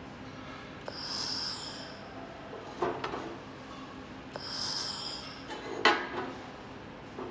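2000 W handheld laser welder tacking aluminium: two sizzling hisses of about a second each. Between and after them come sharp metallic knocks as the aluminium bar is handled and repositioned, the second the loudest, over a low steady machine hum.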